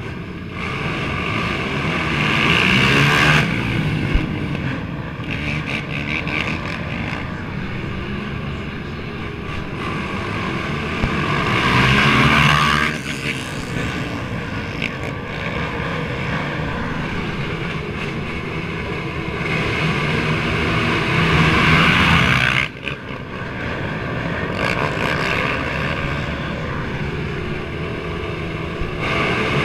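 The engines of a field of race ATVs running and revving together at a start line. The noise swells three times and drops off sharply after each swell.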